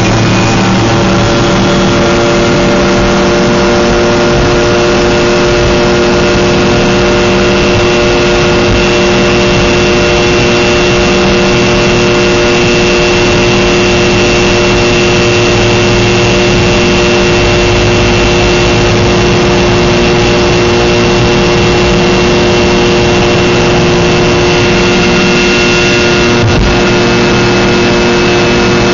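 Cabin sound of a Fokker 70 jetliner's rear-mounted Rolls-Royce Tay turbofans at takeoff power during the takeoff roll and liftoff: loud, steady engine noise with several steady whining tones, and a brief knock near the end.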